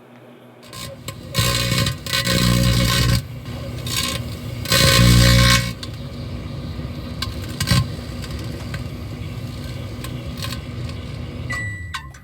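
Microwave oven switching on and running with a steady transformer hum, broken by loud crackling bursts of arcing inside the cavity, twice for a second or two. A short beep sounds near the end.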